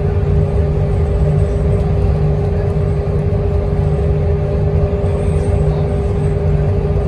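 Transit bus cruising at freeway speed, heard from inside the passenger cabin: a steady low engine and road rumble with a constant hum.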